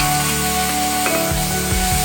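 Background music with held notes, over food sizzling in a pan.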